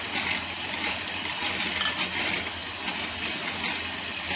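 Electric hand mixer running steadily, its beaters whisking butter and egg in a glass bowl, with irregular light ticks of the beaters against the bowl.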